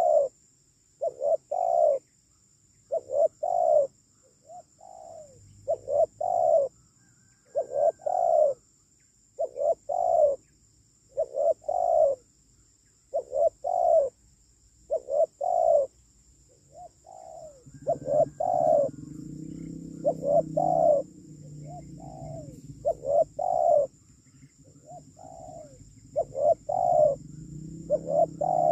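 Spotted dove cooing: short phrases of two or three notes, repeated about every two seconds.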